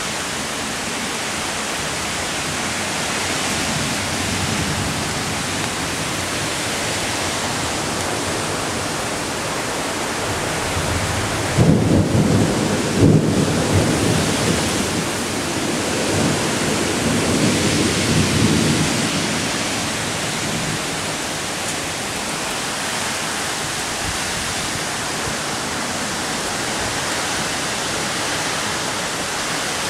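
Heavy thunderstorm rain pouring steadily, with two low rumbles of thunder partway through, the first and louder one about twelve seconds in.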